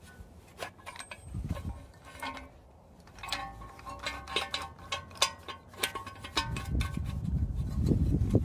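Steel parts of a wheel bearing press clinking and ringing against each other and the cast steering knuckle as the threaded rod and press cups are handled. The sharp clinks cluster in the middle, and a low rumbling noise rises near the end.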